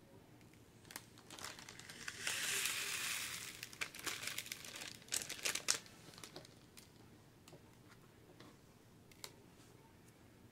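Clear plastic bag crinkling as it is unfolded and handled. The crinkling is loudest about two to four seconds in, and a few sharp crackles follow.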